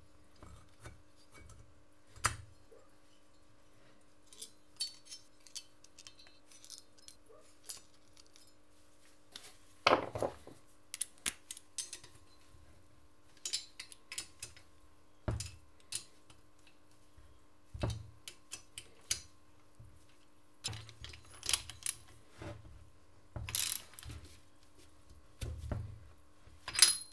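Scattered metallic clinks and knocks of hand tools and nuts on the studs as the cylinder head is fitted to a Simson S51 moped engine and its nuts are done up. A socket ratchet is worked near the end.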